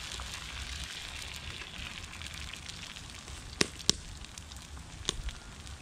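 Small wood fire crackling in an improvised aluminium-can stove over a steady hiss, with two sharp pops close together a little past halfway and one more near the end.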